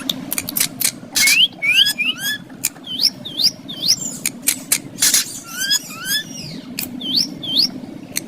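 Green ringneck parrot giving a series of short, rising whistled chirps, mixed with sharp clicks and two brief harsh screechy bursts, about a second and about five seconds in.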